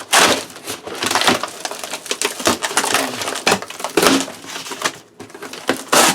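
Cardboard shipping box being torn open: packing tape ripping and cardboard crunching and scraping in a run of loud, sudden rips.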